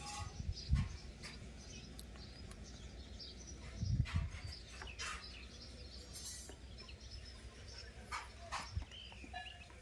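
Outdoor ambience with scattered short bird chirps over a steady low rumble, broken by a few low bumps, under a second in and again around four seconds in.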